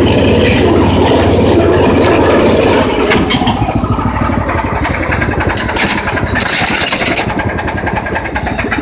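Small riding lawnmower engine running loudly and steadily close by, easing off slightly about three seconds in.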